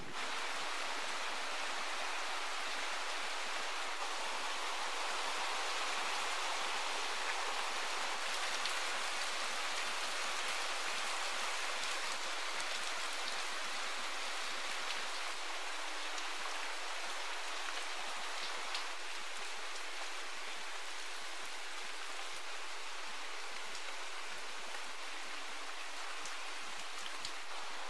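Steady autumn rain falling on garden leaves and puddled ground: an even hiss with a few louder single drops.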